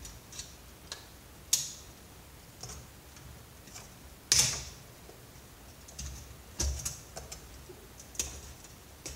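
Hand wire cutters snipping copper wire and clicking against metal and plastic parts of a CRT monitor: irregular sharp clicks, the two loudest about one and a half and four and a half seconds in.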